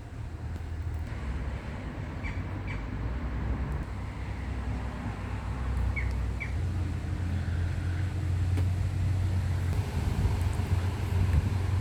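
Strong wind buffeting the microphone, a steady low rumble that grows stronger in the second half. A small bird chirps twice about two seconds in and twice again about six seconds in.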